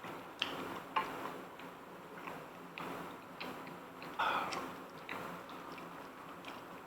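Quiet close-up eating sounds while chewing jjajangmyeon noodles: scattered small wet mouth clicks and smacks, with a brief louder mouth noise about four seconds in.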